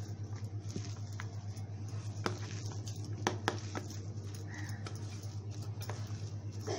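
A hand kneading mashed boiled potato with chopped onion in a stainless steel bowl: soft squishing, with a few sharp clicks against the bowl near the middle. A steady low hum runs underneath.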